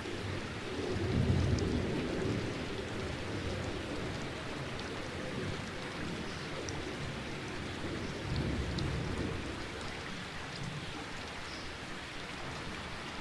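Steady rain falling, with two low rumbles of thunder: one about a second in, the louder, and another around eight seconds in.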